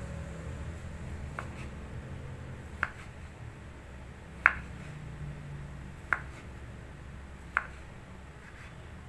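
Kitchen knife slicing a block of tempeh thin on a wooden cutting board, the blade knocking the board as each slice goes through: five sharp knocks about a second and a half apart, the middle one the loudest, over a low steady hum.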